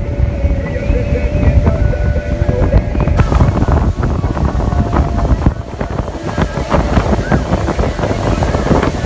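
Motorboat under way: wind buffeting the microphone over the boat's low rumble and water rushing past the hull, with gusts growing stronger about three seconds in.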